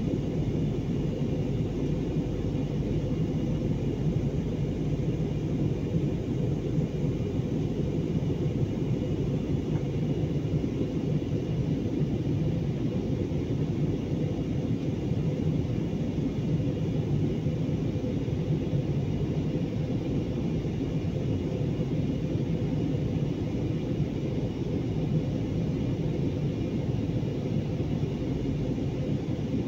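Steady low rumble of an airliner in flight heard inside the passenger cabin: the constant drone of engines and airflow, with no change in pitch or level.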